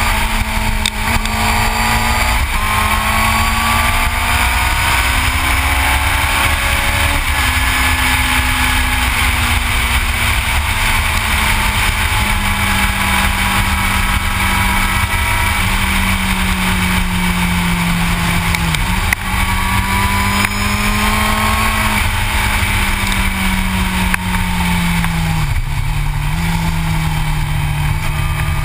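Yamaha R6 sport bike's inline-four engine running at steady riding revs, its note rising and falling gently with the throttle through the curves and dipping briefly twice in the second half. Heavy wind rush on the bike-mounted camera's microphone.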